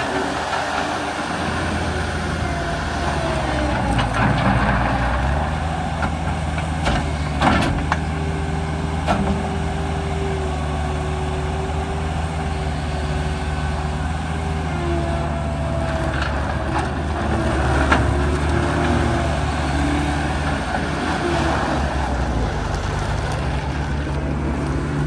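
New Holland L175 skid steer's diesel engine running steadily, with a higher tone that wavers in pitch over it and a few sharp knocks along the way.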